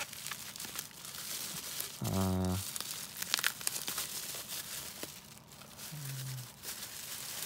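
Plastic bubble wrap crinkling and rustling as hands unwrap it, with a short hum of a voice about two seconds in.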